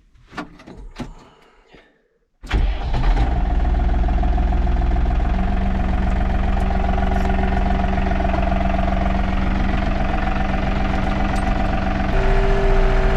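A few light clicks and knocks, then about two and a half seconds in the New Holland TN75S tractor's diesel engine comes in suddenly and runs steadily with a droning hum. About a second before the end it gets louder and a higher steady whine joins in.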